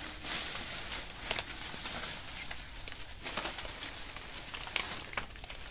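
Dry banana leaves crackling and rustling underfoot and under hand as someone walks through and rummages in the leaf litter, with irregular sharp crackles throughout.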